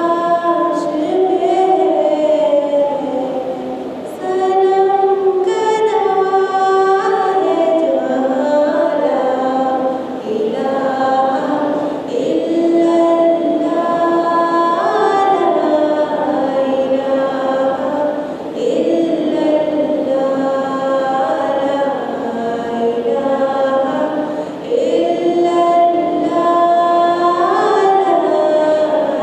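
A woman singing an Urdu tarana solo into a microphone, without instruments, in long sustained phrases with gliding ornaments and brief breaths between them.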